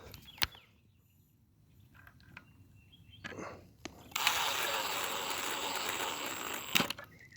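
Power drill driving a screw that mounts the gate-opener keypad to a pole: a click, then the drill runs for about two and a half seconds, starting and stopping abruptly.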